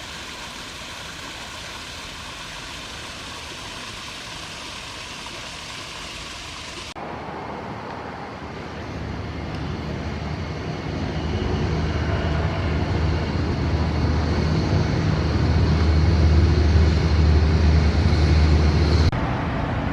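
Vehicle noise: a steady hiss, then after a sudden change a low rumble that builds over about ten seconds and cuts off abruptly near the end.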